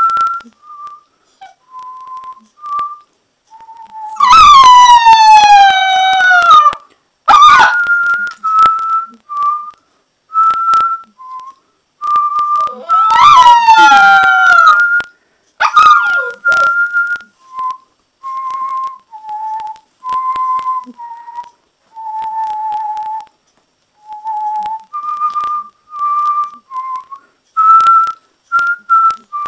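A tune whistled in short steady notes while an Alaskan Malamute puppy howls along in long falling howls. The longest howls come about four seconds in and again around thirteen seconds in, with shorter ones between.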